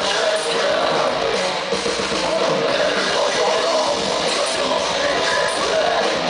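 Live rock band playing loud and steady, with distorted electric guitars and a drum kit, heard from the crowd.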